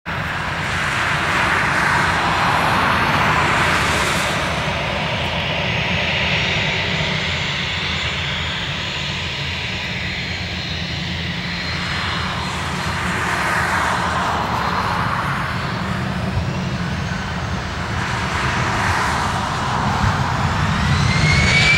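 Airbus A320's CFM56 turbofan engines running at taxi power, a steady jet noise that swells and fades as the aircraft turns onto the runway. Near the end a rising whine sets in as the engines spool up for the takeoff roll.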